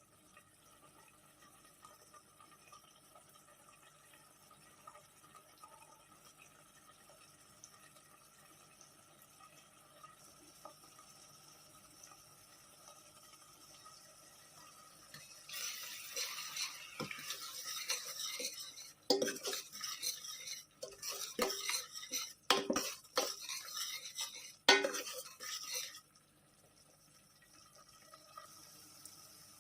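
A spoon stirring and scraping in a cooking pot for about ten seconds, with several sharp knocks against the pot, after a long stretch of faint room sound. The stirring stops abruptly.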